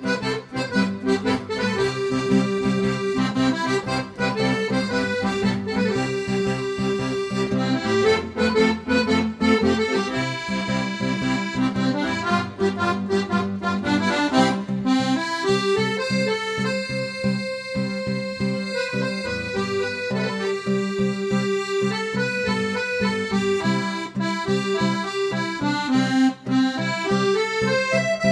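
Recorded accordion music playing a sardana melody over held chords: the instrumental introduction, with no voice yet.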